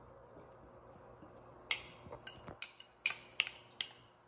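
Wooden chopsticks knocking against a small ceramic bowl to scrape scallions out of it: a run of about six sharp, briefly ringing clinks that begins a little under two seconds in.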